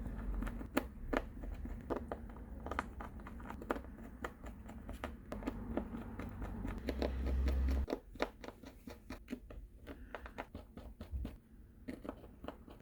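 Small Phillips screwdriver working the tiny screws in a smartphone's frame, giving irregular light clicks and scrapes of metal and plastic. A low rumble of handling swells and stops about eight seconds in.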